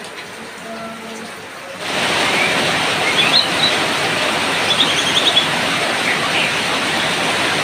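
Rain recording: a quieter patch, then about two seconds in a steady loud hiss of heavy rain cuts in. A few short, high white-rumped shama chirps sound over the rain.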